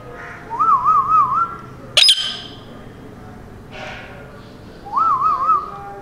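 Indian ringneck parrot calling: a warbling whistle, a single short piercing screech that drops sharply in pitch about two seconds in, then the same warbling whistle again near the end.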